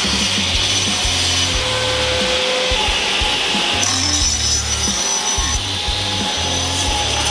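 Sliding table saw running and crosscutting a softwood board; the sound of the cut shifts about four seconds in.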